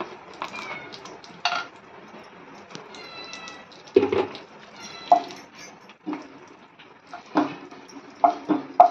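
Kitchenware clinking and knocking against a nonstick pan of cashews and raisins frying in ghee, with several sharp knocks, the loudest about four seconds in. Two short high calls are heard, about three and five seconds in.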